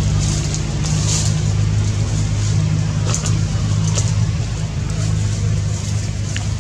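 Steady low hum of an engine running, holding an even pitch, with a few faint high ticks now and then.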